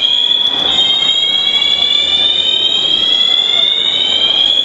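Shopping-mall fire alarm sounding continuously: a loud, high-pitched tone that slowly climbs in pitch over about four seconds, drops back and starts climbing again.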